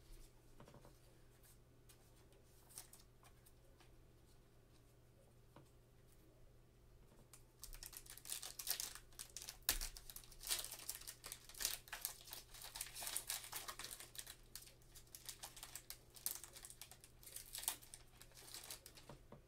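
Crinkling and tearing of a trading-card pack wrapper as it is ripped open by hand, a dense crackle that starts about eight seconds in after a few faint clicks of cards being handled.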